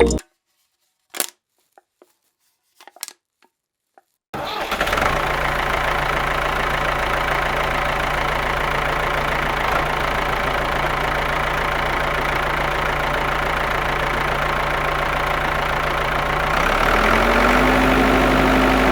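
A few faint clicks, then a small motor starts abruptly and runs steadily with a low hum and a noisy rattle. Near the end its pitch rises and it gets louder as it speeds up.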